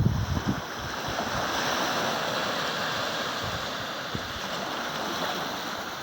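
Ocean surf washing in: a steady rush of water that swells and then slowly fades, with a low rumble during the first half-second.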